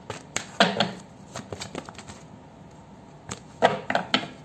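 A deck of oracle cards being shuffled and drawn by hand: short riffles and snaps of the cards, loudest about half a second in and again near the end, with quieter handling between.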